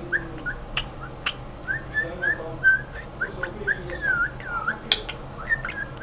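Male budgerigar chattering at its mirror reflection: a run of short whistled chirps, two or three a second, some dipping and rising in pitch, with a few sharp clicks among them.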